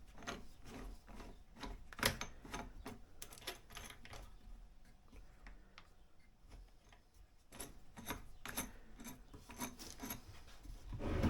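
Crown CT11001 router's plastic depth stop and adjusters worked by hand: runs of small clicks and rubbing, busy through the first few seconds and again after a quieter pause, with a heavier knock at the end.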